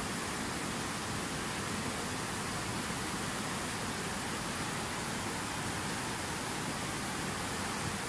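Fast mountain river rushing through boulder rapids: a steady, unbroken rush of white water.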